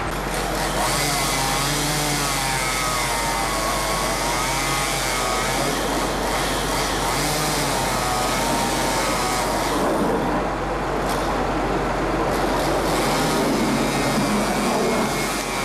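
Two-stroke chainsaw running at high revs and cutting wood, its engine pitch wavering up and down under load, with a brief easing of the sound about ten seconds in.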